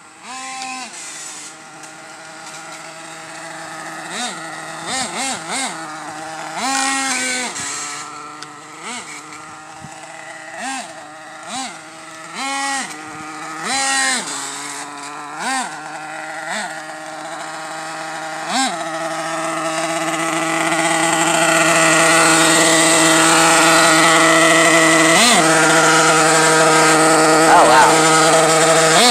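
Nitro engine of an Ofna RC truck revving in short blips, each a quick rise and fall in pitch, then from about two-thirds in running steadily at high revs and louder as the truck comes close. It is making an odd noise, which the owner puts down to a destroyed clutch bell.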